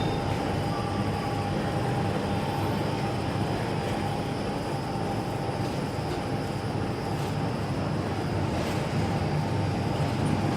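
Two-lane plastic bag cutting and sealing machine running steadily: a low motor hum and a constant high whine under a mechanical clatter, with a few faint clicks about a second and a half apart in the second half.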